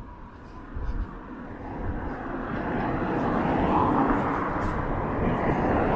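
A passing engine's rumble, growing steadily louder over a few seconds and then staying loud.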